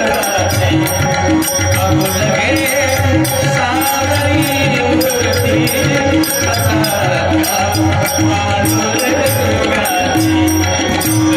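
A Marathi abhang bhajan sung by a solo voice over a steady rhythm of drum beats and jingling metal percussion.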